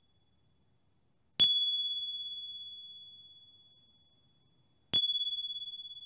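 A small high-pitched Tibetan bell struck twice, about three and a half seconds apart. Each strike rings one clear high tone that fades over a few seconds with a slight pulsing; the second strike is a little softer.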